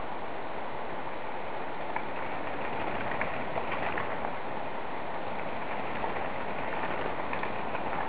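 Steady rushing noise, with light crunching and rattling of mountain-bike tyres on a loose rocky gravel road as the riders come closer. The crunching is clearest from about two to four seconds in and again near the end.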